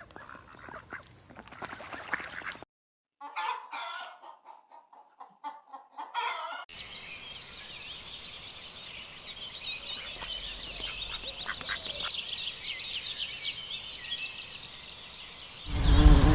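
Chickens clucking in short, broken calls, cut together with a stretch of many high-pitched chirps that grow busier toward the end.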